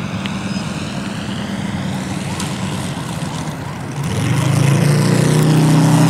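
Quarter-scale Corsair model's MOKI 250cc gasoline radial engine and propeller droning steadily in flight. About four seconds in it gets louder and steadier in pitch as the plane passes closer.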